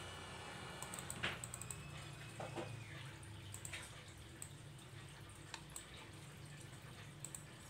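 Faint, scattered clicks of a computer mouse, some as quick double-clicks, over a low steady hum.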